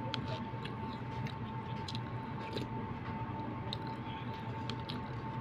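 A metal spoon stirring and scooping in a plastic cup of dessert, making scattered light clicks and scrapes, with chewing. A steady high-pitched hum and a low hum run underneath.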